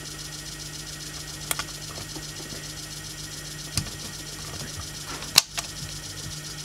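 Powered-up Peak KA-200 transistor stereo amplifier with a steady low hum, broken by sharp clicks and pops as a test lead is moved onto its input wiring; three stand out, the loudest about five seconds in.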